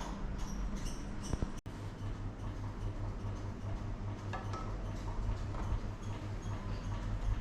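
Scattered small clicks and ticks of hand work on the bike's frame linkage, over a steady low hum.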